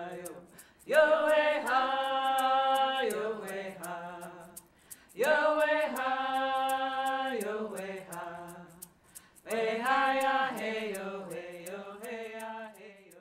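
A group of voices singing an Indigenous song in unison, in three phrases that each open on a high held note and step downward, over a steady beat of sharp clicks.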